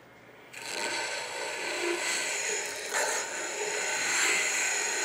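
A segmented pen blank of stabilized wood with aluminum layers pressed against a sanding disc spinning on a wood lathe, squaring up its glued end. The steady rasping sanding starts about half a second in and runs on evenly.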